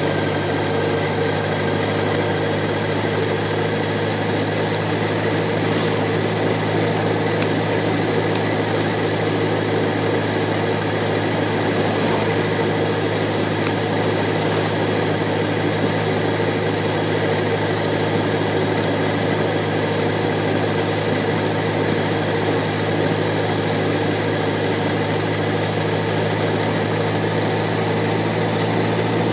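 BMW K1100LT motorcycle's inline-four engine running at a steady cruise, its hum holding an even pitch throughout, under a constant hiss.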